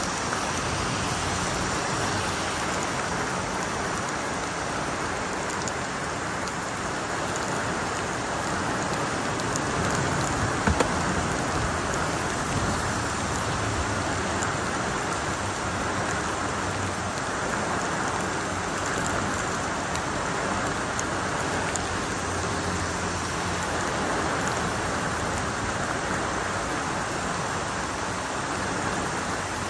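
Heavy tropical rain pouring steadily, a constant dense hiss of rain falling on a wet road, with one brief sharp click about ten seconds in.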